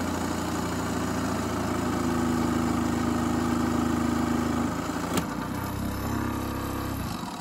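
Proxxon scroll saw running and cutting a piece of wood freehand: a steady motor hum with the blade stroking up and down. A click comes about five seconds in, after which the tone changes.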